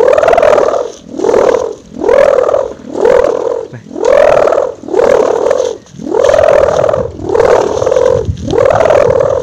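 Bamboo sendaren (Javanese kite hummer bow strung with a ribbon) swung back and forth by hand, humming in loud swells about once a second. Each hum rises in pitch as the bow gathers speed, holds briefly, then falls away.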